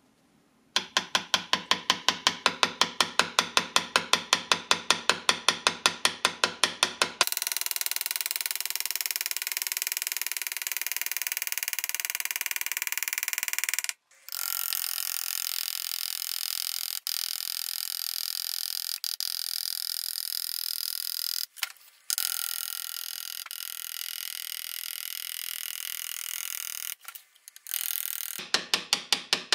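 Rapid, even tapping on a hand graver as it cuts lines into a brass plate, about seven strikes a second, for the first seven seconds or so. After that comes a steady hiss with a few held tones, broken by brief gaps.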